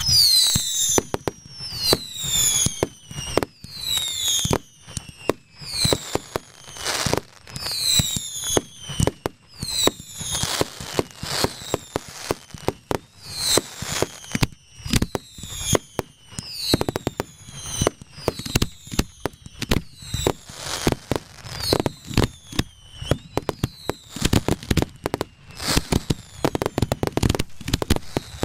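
Firework batteries (cakes) firing in rapid succession close by: a continuous string of launch thumps and bangs, several a second, with many whistling shots falling in pitch.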